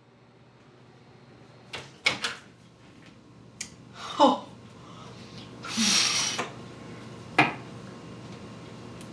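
Microwave oven with a plastic water bottle inside: a steady low hum with a series of sharp clicks and knocks, the loudest about four seconds in, and a short burst of hiss about six seconds in.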